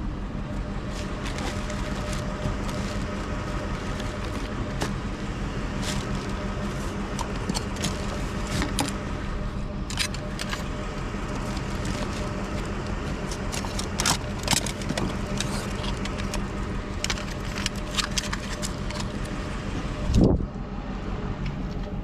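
Truck engine running steadily with a constant low hum, overlaid by scattered light clicks and rattles, and a single thump near the end.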